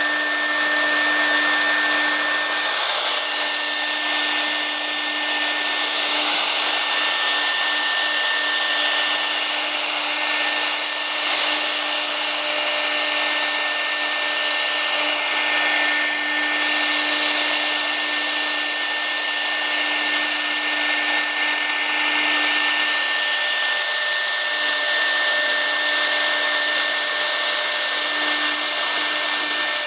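Woodworking CNC router's spindle running at speed with a steady high whine, its bit cutting a profile into MDF with a continuous hiss.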